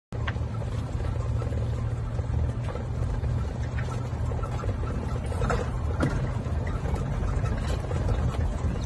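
Golf cart running with a steady low rumble, with a few faint clicks and knocks over it.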